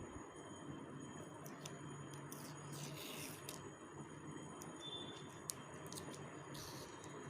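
Faint handling of cardboard and sticky tape: a few brief scratchy rustles over a steady background hiss.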